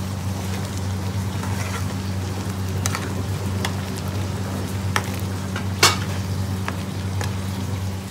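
A long metal spoon stirring a pan of bubbling lentil dal on a high flame: a steady simmering hiss with scattered clinks of the spoon against the steel pan, the sharpest one a little before six seconds in. A steady low hum runs underneath.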